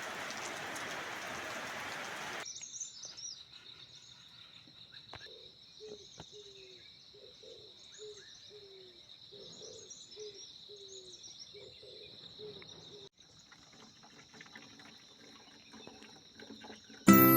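Birds calling in the hills over a steady high insect drone, with one low, slightly falling note repeated about twice a second for several seconds in the middle. It opens with a couple of seconds of steady hiss, and music comes in at the very end.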